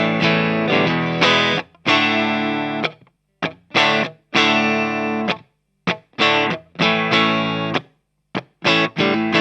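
Momose Stratocaster-style electric guitar played through distortion and close-miked with a Shure SM57: a series of chords, some short stabs and some held about a second, each stopped abruptly with brief silences between.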